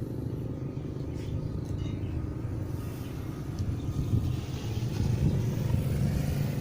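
A steady low rumble like an engine running, growing somewhat louder near the end.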